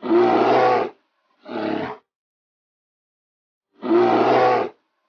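A wild animal's roaring call played as a sound clip: a call of about a second, then a shorter one, and the same pair again about four seconds in, with clean silence between.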